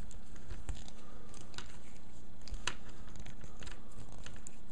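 Scattered light clicks and scrapes of a mini Phillips screwdriver turning tiny screws in a plastic action figure's chest, with the figure being handled. A steady low hum runs underneath.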